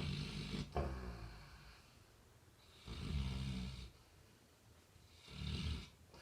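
Labrador retriever snoring in its sleep: three snoring breaths, at the start, about three seconds in and near the end, each a low rattling buzz with a hiss of air.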